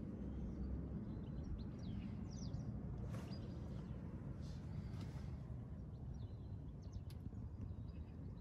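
Low, steady outdoor background rumble with birds chirping briefly several times.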